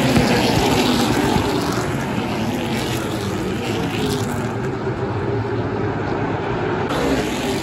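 A pack of NASCAR Pinty's Series stock cars' V8 engines running together at speed. Their pitch slides down as the nearest cars go by in the first couple of seconds, then settles into a steady, slightly quieter drone as the field goes around the far turn.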